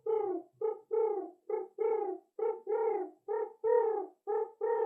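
A person imitating a dove's cooing with his voice: a steady series of paired coos, a short note followed by a longer, slightly falling one, repeating about once a second.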